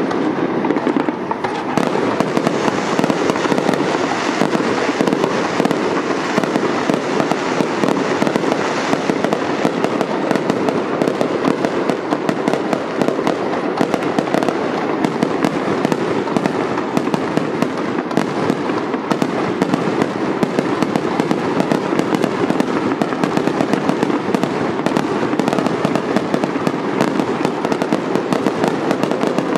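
Fireworks display going off, a dense unbroken run of bangs and crackling.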